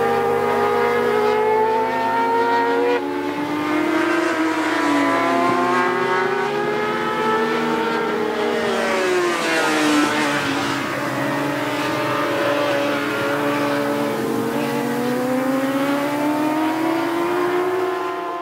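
Several racing motorcycles running hard around a track, their engine notes rising and falling as they accelerate and change gear. One bike passes close about ten seconds in.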